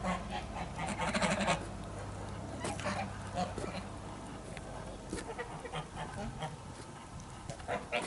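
Flock of white domestic geese calling in short nasal honks, the loudest about a second in, with scattered calls through the rest.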